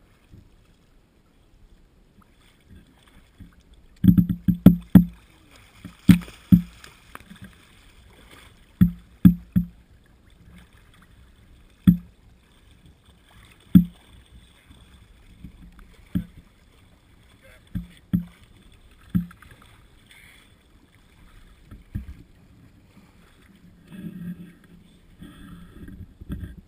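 Irregular heavy thumps and knocks, singly or in quick clusters of two or three, from water slapping against the boat's hull and the camera held at the waterline, with faint sloshing between them.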